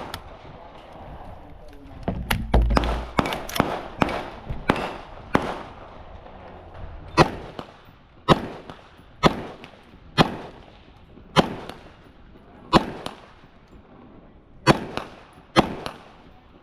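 Airsoft gun firing a string of single shots, about fifteen sharp cracks at an uneven pace: several quick ones close together early, then one about every second. A low rumble comes in briefly about two and a half seconds in.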